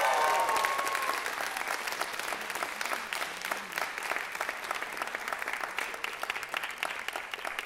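Audience applauding after a steel band number. The clapping is loudest at the start and slowly thins out.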